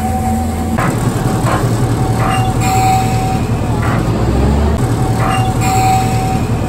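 The Botchan Ressha, a diesel-powered replica of a small steam train, running with a steady low engine note as it moves along the platform. The note shifts about a second in, and short clanks come from the running gear several times.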